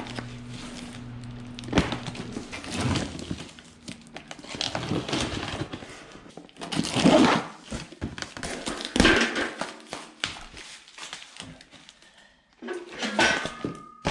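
A steady low hum for the first two seconds or so, then a string of irregular thuds, clunks and crinkling as parts and packaging are handled.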